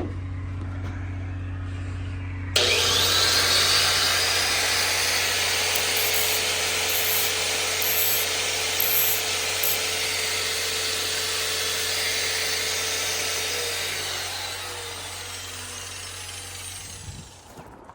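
A power tool starts suddenly about two and a half seconds in, over a steady low hum. It runs with a dense grinding-type noise and a steady whine, then winds down and fades out near the end.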